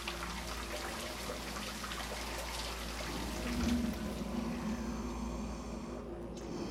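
Steady watery rushing noise, with a faint low hum that is strongest a little past the middle.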